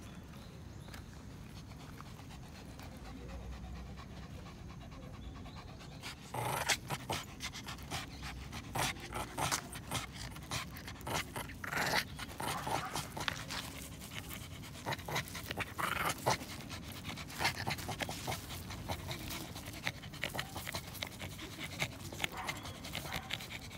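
Shih Tzu panting hard in quick, irregular huffs with a stick clamped in its teeth while playing tug-of-war. The panting starts about six seconds in.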